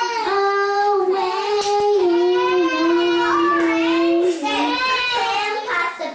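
A young girl singing alone into a karaoke microphone with no backing music, holding long notes that step down in pitch, the longest held through the middle.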